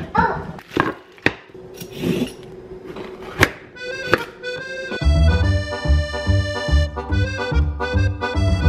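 A few sharp knocks and clicks of kitchen clatter, then about five seconds in background music with a steady beat and a sustained melody comes in.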